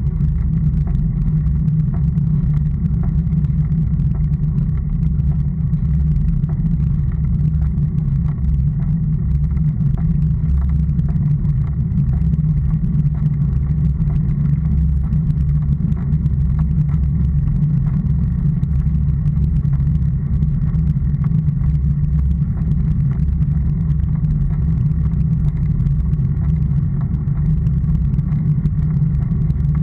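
Steady low rumble of a road bike ride recorded on a camera mounted on the moving bike: wind on the microphone mixed with tyre and road vibration from the asphalt.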